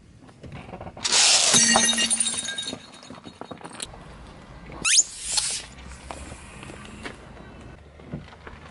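A car tyre rolls onto a plate of M&M's candies, giving a loud crunching and cracking that lasts about two seconds. About five seconds in, rubber ducks are squashed under the tyre with a short rising squeak.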